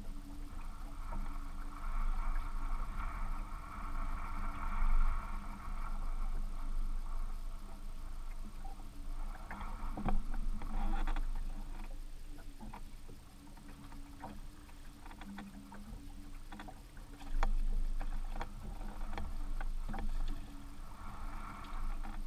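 Wind buffeting the microphone and water lapping against a small fishing boat's hull. From about nine seconds in come scattered short clicks and knocks, typical of rods and reels being handled in the boat.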